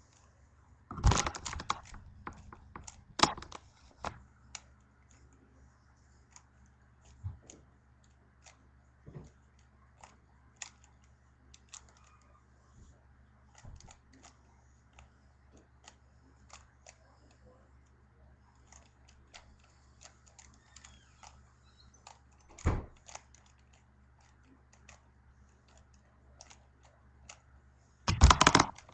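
Rubik's Cube being turned by hand: scattered plastic clicks and clacks as its layers rotate, with a few louder knocks about a second in, at about three seconds and near the end, over a steady low hum.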